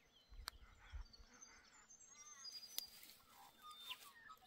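Near silence with faint bird chirps and calls in the distance, a couple of small sharp clicks, and a brief low rumble about half a second in.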